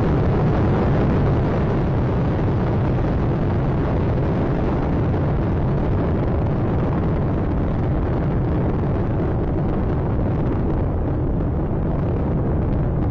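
Space Shuttle Atlantis climbing after liftoff: the steady, deep rumble of its two solid rocket boosters and three main engines. It grows slightly duller near the end.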